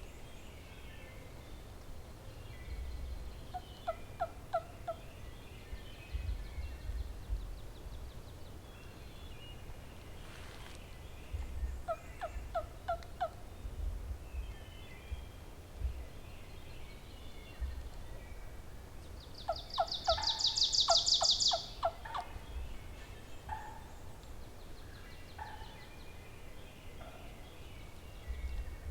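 Wild turkey gobbler gobbling three times, the rapid rattling gobbles spaced several seconds apart, the last the loudest with a brief high-pitched rattle on top of it. Small birds chirp faintly in the background.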